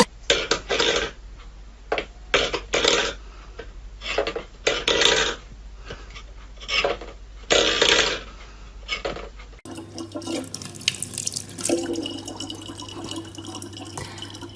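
Water splashing in irregular bursts, then a tap running more steadily from about ten seconds in.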